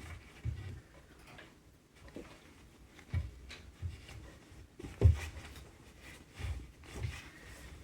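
Irregular soft thumps and light taps in a small room, about half a dozen, the loudest about five seconds in.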